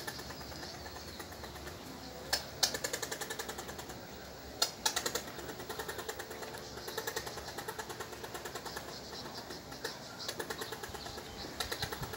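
Squirrel chattering in repeated runs of rapid short pulses, about eight a second, with two sharp clicks standing out about two and four and a half seconds in.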